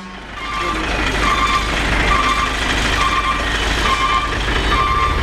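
Heavy diesel truck engine running with a low rumble while an electronic warning beeper sounds short, even beeps, about three every two seconds.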